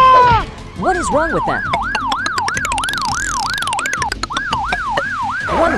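Police siren in a rapid yelp, its pitch sweeping up and down about three times a second. It starts about a second in, after a short falling tone.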